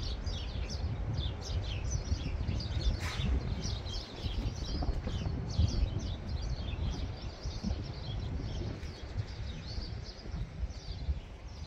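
A flock of small birds chirping constantly, many short falling calls overlapping, over the rumble of strong storm wind buffeting the microphone.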